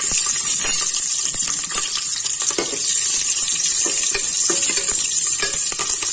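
Green and red chillies sizzling steadily in hot ghee in a pressure cooker, with the short scrapes and clicks of a spatula stirring them against the pot.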